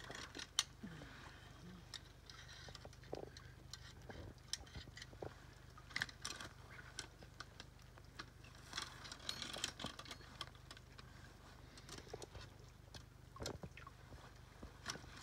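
Faint, irregular clicks, small metal knocks and rustling as a steel 330 body-grip trap is worked off an otter with a trap-setting tool.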